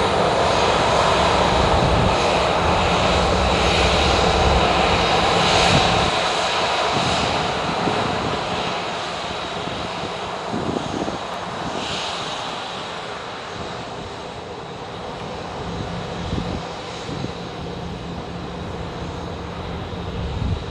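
Boeing 737-800's CFM56-7B turbofan engines running at taxi power as the airliner rolls slowly along the runway: a steady jet rush with a thin high whine. It is loudest with a deep rumble for the first six seconds, then grows gradually quieter.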